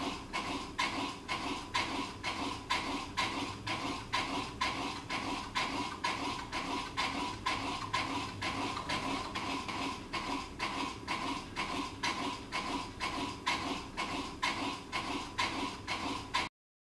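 Ceiling fan running, with a regular clacking about three times a second over a steady hum. The sound cuts off suddenly near the end.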